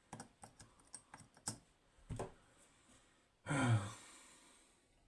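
Small metallic clicks and taps of a pick and tension wrench working the pins of a DOM IX 6KG pin-tumbler lock. About three and a half seconds in comes a louder long sigh that falls in pitch and fades out.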